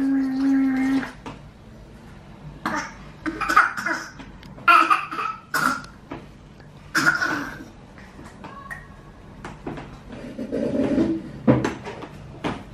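A baby's voice: a short held hum at the start, then a string of brief babbling and cough-like sounds. A softer rustle follows, then a single sharp knock near the end.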